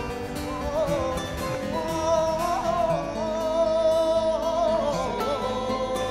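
Background music: a voice singing a melody with long held, wavering notes over instrumental accompaniment.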